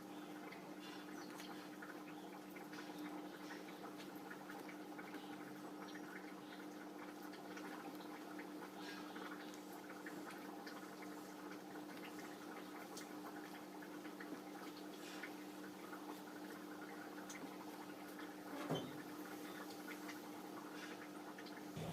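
Quiet eating sounds: many soft, wet chewing and mouth clicks over a steady low hum, with one slightly louder short knock about nineteen seconds in.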